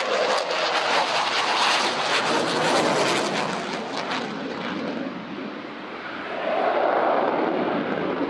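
Saab JAS-39 Gripen's single Volvo RM12 turbofan jet engine running at high power in flight, with a crackling roar. The noise eases off about five seconds in and swells again near the end as the jet turns.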